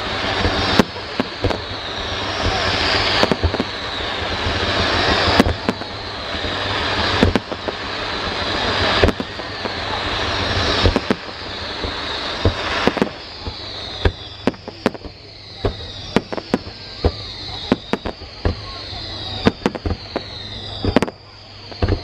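Aerial fireworks shells bursting in quick succession, with many sharp bangs. Underneath is a dense crackling hiss that swells and cuts off about every two seconds, and in the second half there are falling whistle-like tones.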